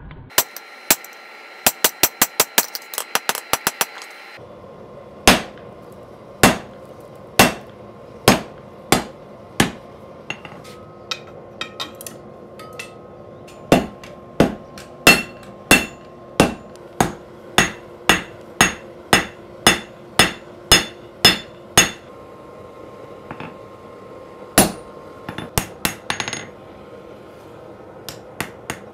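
Hand hammer striking red-hot steel on an anvil, each blow a sharp ringing strike. A quick run of strikes at first, then steady blows about one to one and a half a second, with a short pause and a few lighter taps near the end, over the steady roar of a gas forge.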